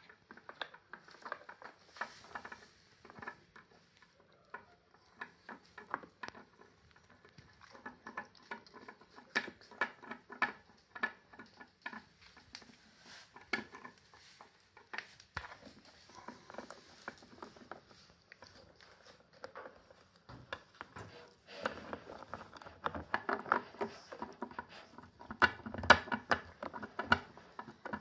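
A small dog gnawing on a plastic toothbrush, its teeth making irregular clicks and scrapes on the plastic. The chewing is busier and louder near the end.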